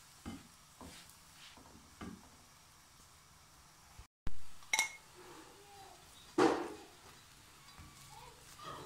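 Cooking utensils knocking against a non-stick frying pan: a few light taps of a silicone spatula in the first couple of seconds, then sharper metallic clinks of a spoon on the pan, the loudest about six and a half seconds in.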